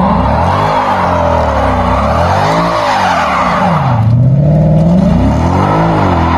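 Car engine revving up and down several times with tyres screeching.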